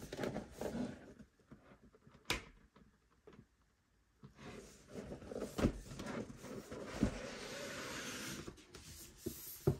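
Hands handling a red cardboard box and working its tight-fitting lid off the base: knocks and rubbing at first, a sharp knock a couple of seconds in, then a long rustling scrape of cardboard sliding on cardboard with a few thumps, and a knock near the end.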